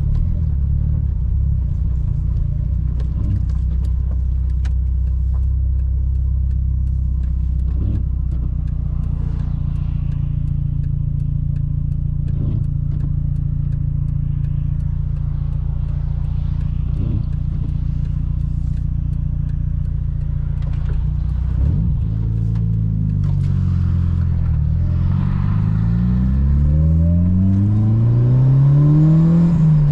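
Tuned 400 hp Mitsubishi Lancer Evo 8's turbocharged four-cylinder engine running at a steady low speed for about twenty seconds. Then the revs dip and climb steadily in pitch, falling back sharply just before the end, as at a gear change.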